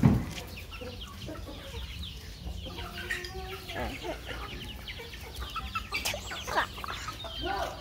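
A flock of hens and roosters clucking and chirping in many short overlapping calls as they gather to be fed, with a brief low thump right at the start.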